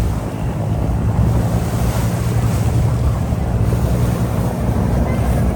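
Wind buffeting the microphone over the steady low drone of a river boat's engine and the rush of water along the hull.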